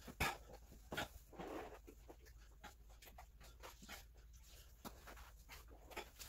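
Faint scrubbing and wiping of a wet sponge on a kitchen floor, with a couple of light knocks in the first second.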